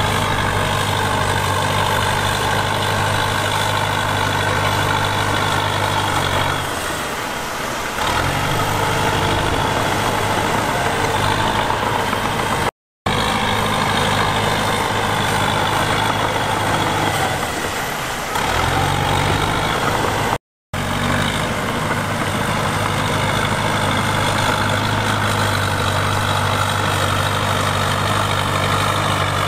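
Heavy diesel engine of earthmoving machinery running steadily at a constant speed. Its low note fades out briefly about seven seconds in and again about eighteen seconds in, and the sound cuts off completely for a split second twice.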